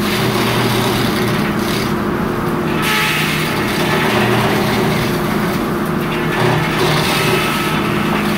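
Sawmill machinery running steadily: a loud, continuous mechanical noise with a steady low hum, getting brighter and harsher about three seconds in.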